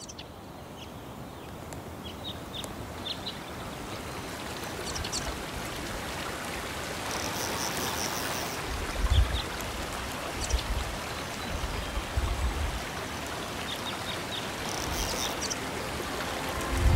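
Steady rushing water, like a stream or heavy rain, fading in over the first few seconds. A few short high chirps come through it, and there are bursts of low rumble from about halfway on.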